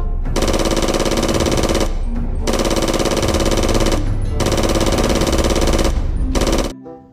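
Electronic toy machine-gun sound effect: a rapid rattle with a buzzing tone under it, fired in bursts of about two seconds with short breaks between them, stopping shortly before the end.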